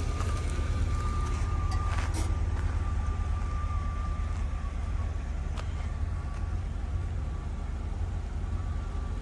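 Car engine idling steadily: a low rumble with a thin, steady whine above it and a couple of light clicks.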